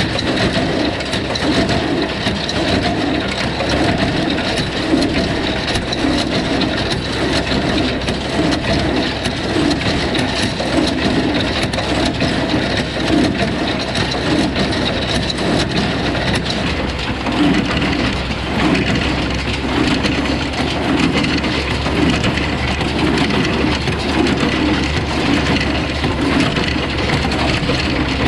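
A tractor running steadily with a New Holland Super 66 small square baler working behind it, its plunger packing hay in a steady repeating rhythm.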